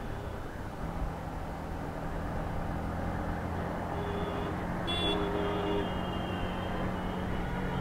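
Yamaha MT-15's single-cylinder engine running steadily at about 60 km/h, with wind rushing over the microphone and road noise. A brief pitched tone from traffic sounds about four seconds in.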